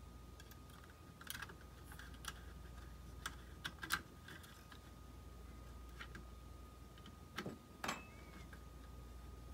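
Scattered light clicks and taps of metal tweezers and fingers against a Hubsan Zino drone's circuit board and plastic shell as the unscrewed main board is pried loose and lifted, over a faint steady low hum.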